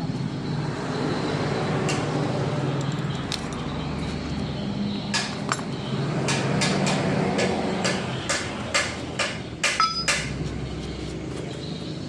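About a dozen sharp metallic clinks and taps, several a second, from about five seconds in until near the end, as steel tools and differential parts are handled, over a steady low hum.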